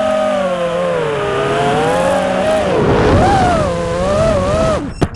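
Motors and propellers of a 5-inch FPV racing quadcopter whining in flight, the pitch rising and falling with the throttle over a rush of wind on the onboard microphone. Near the end the whine drops away and a sharp knock follows.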